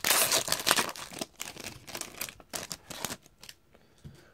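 A trading-card pack wrapper crinkling and tearing open, with cards rustling as they are handled. Loudest in the first second, it thins to scattered rustles and dies away about three seconds in.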